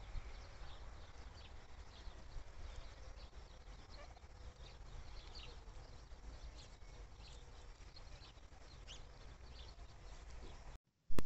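A small flock of turkeys foraging in a field, giving many short, soft clucks and peeps over a low steady rumble. Near the end the sound drops out, then a single loud click.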